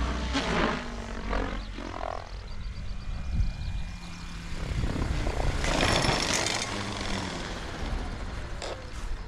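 XLPower Specter 700 V2 radio-controlled helicopter coming down and landing: its rotor whirs with a falling pitch early on, then slows on the ground, with a broad whoosh about six seconds in.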